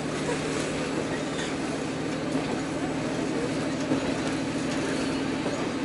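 A diesel railcar running along the line, heard from inside the passenger cabin. There is a steady engine and running hum with wheel-on-rail noise, and a few light clicks from the track.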